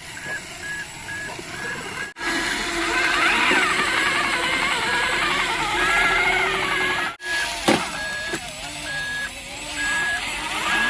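Toy truck sound effects: a steady reversing beep, repeating at an even pace, over engine noise and wavering tones. The sound cuts out abruptly twice, about two seconds in and again about seven seconds in.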